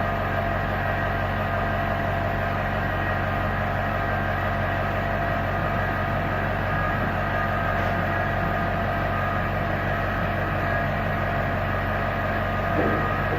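Steady machine hum with several fixed tones, unchanging throughout, typical of workshop equipment such as a vacuum pump or compressor running.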